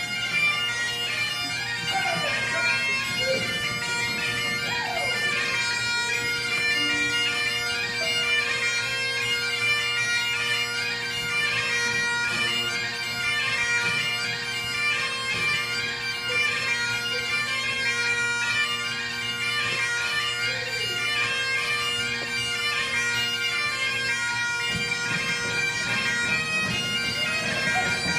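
Great Highland bagpipe playing a tune, the chanter melody moving over the steady drones.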